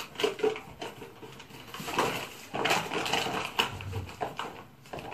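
Irregular knocks, clicks and rustling of someone rummaging through small household items, searching for hairpins.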